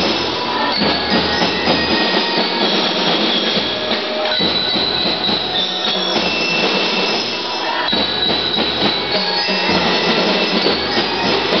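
Drum and lyre corps playing a march: bell lyres ring out a high, bright melody over drums, steady and loud throughout.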